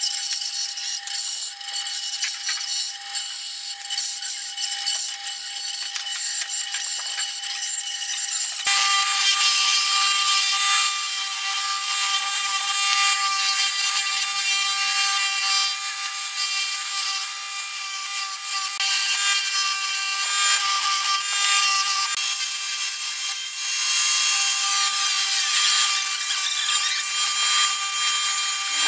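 A bandsaw running and cutting through a wooden block: a steady whine with hiss. About nine seconds in it gives way abruptly to a spindle sanding drum running, with the wooden workpiece pressed against it and rubbing.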